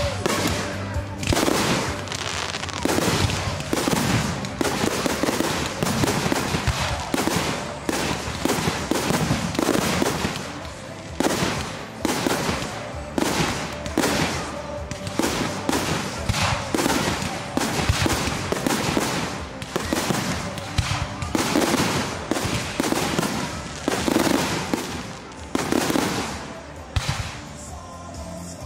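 Fireworks display: a dense, continuous run of bangs and crackles, several each second.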